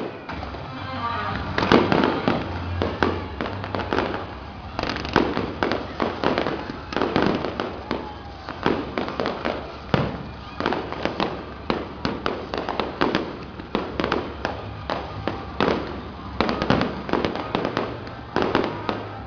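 Aerial fireworks bursting: an irregular volley of bangs and crackles, a few at first, then many a second from about five seconds in.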